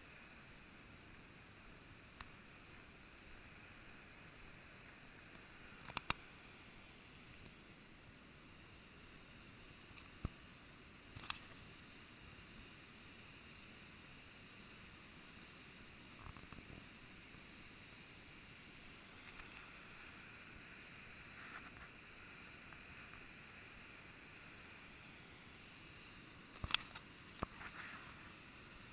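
Faint, muffled steady rush of a waterfall, broken by a few sharp knocks and taps about 6, 10 and 11 seconds in and a louder cluster near the end.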